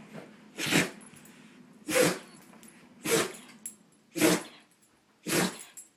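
A cockapoo in a sneezing fit: five sharp sneezes about a second apart.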